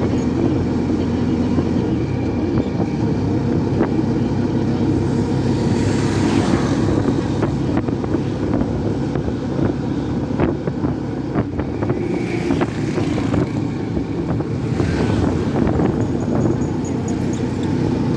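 Engine of a moving road vehicle running steadily, heard from on board, with wind buffeting the microphone. Other traffic swells and fades past a few times.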